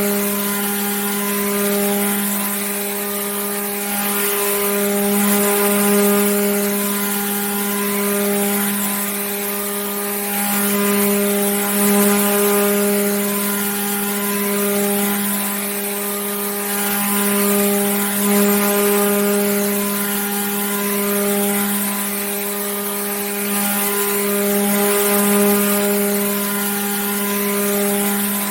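Electric water pump running steadily: a constant motor hum with a stack of overtones over a steady hiss, swelling and easing slightly every couple of seconds.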